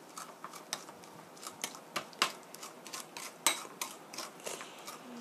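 A metal spoon scraping and clinking against a ceramic bowl as minced garlic is mashed with sugar and oil: irregular small clicks and scrapes, the sharpest about two and three and a half seconds in.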